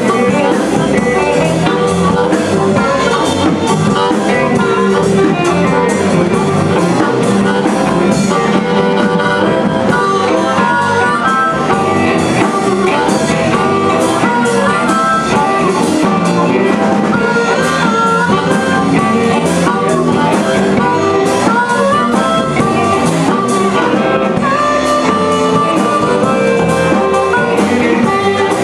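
Electric blues band playing live: a harmonica cupped to a microphone carries the lead over electric guitar, bass guitar and drums.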